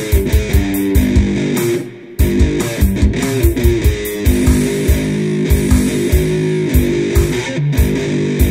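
Electric one-string cigar-box diddley bow played through a small Roland Micro Cube amp as a metal-style improvised riff: fast, driving picked notes with shifting pitch, broken by a brief pause about two seconds in.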